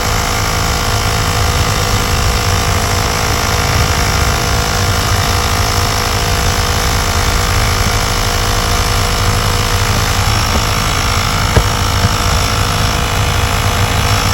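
Sun Joe 24V cordless air compressor running steadily under load, pumping air into an ATV tire whose bead has not yet seated on the rim, set to about 80 psi. A single brief click sounds about two-thirds of the way through.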